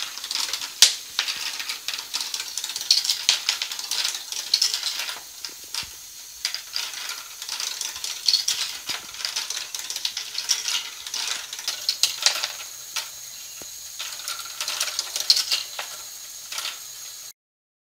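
Lego Great Ball Contraption tower module running: plastic balls and Lego parts clattering and clicking irregularly as the lift carries balls up and they roll down the ramps, over a faint steady motor whine. The sound cuts off abruptly near the end.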